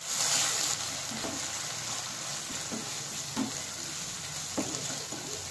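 Onion and ginger-garlic paste frying in hot oil with freshly added powdered spices, a steady sizzle that is loudest in the first second or so. A few light stirs of a spoon in the pan.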